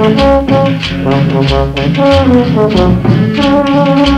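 Cumbia music played loud through a sonidero sound system: brass horn lines over a steady, repeating bass beat.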